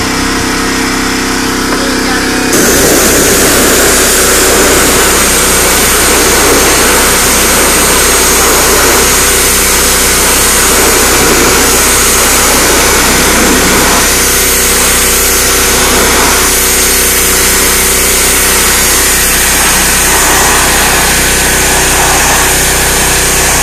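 Gas pressure washer's engine running steadily; about two and a half seconds in the trigger opens and the high-pressure water jet comes on, hissing steadily against the wooden deck boards over the engine.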